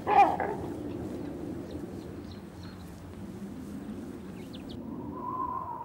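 A short, loud animal call with a falling pitch at the very start, then a low steady outdoor ambience with a few faint high chirps. Near the end a steady, slightly wavering whistle-like tone sets in.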